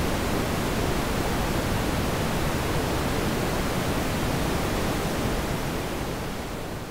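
Steady rushing road noise of a moving car, tyre and wind noise with no engine tone standing out, starting to fade out near the end.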